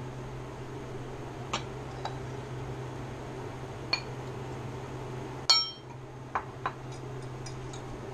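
Kitchen utensils clinking against dishes: six scattered clinks, the loudest about five and a half seconds in with a brief ring, over a steady low hum.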